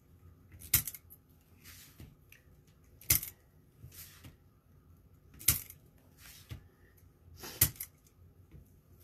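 Hand cutters snipping the tails off plastic zip ties: four sharp snaps a little over two seconds apart, with a few fainter clicks between.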